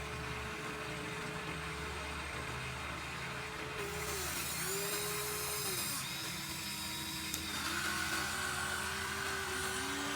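Small electric motors of a Huina 1593 remote-control excavator whining as it digs sand. The pitch dips and recovers several times as the motors take load, and a higher whine joins in for a few seconds in the middle.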